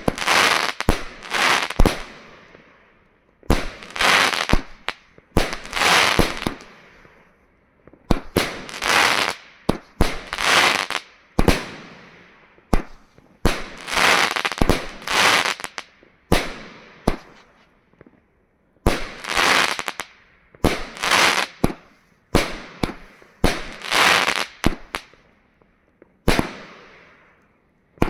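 Pyromax Hydra 36-shot, 30 mm firework cake firing. Sharp reports come in quick clusters of several shots, with brief pauses between the clusters, each report dying away over about half a second.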